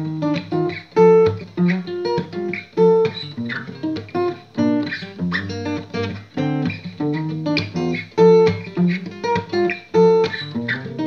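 Steel-string Yamaha acoustic guitar played fingerstyle: the opening riff of a song, plucked notes mixed with sharp percussive strikes on the strings and several loud accented hits.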